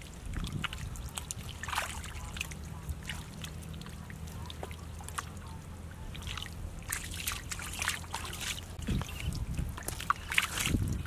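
Hands squelching and sloshing through soft wet mud and shallow water, in irregular short spells of wet noise.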